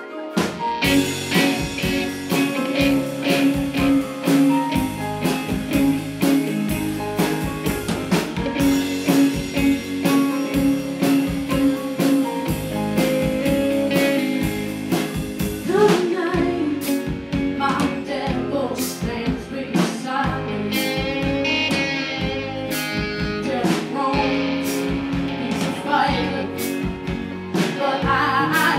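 Live band playing: drum kit, electric bass and acoustic and electric guitars start abruptly just after the beginning, with a voice singing from about halfway through.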